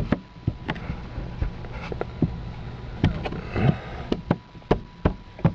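Irregular plastic clicks and knocks as a replacement rear speaker cover for a 2002–2006 Toyota Camry is pressed and tapped down until its clips seat in the rear shelf holes.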